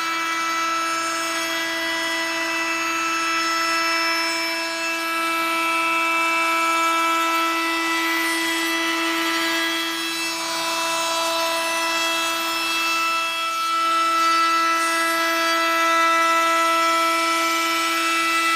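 DeWalt 20V XR cordless compact router running at full speed with a 1/4-inch roundover bit, cutting a rounded edge on a pine cabinet door. A steady high whine with small changes in level as the cut goes along the edge.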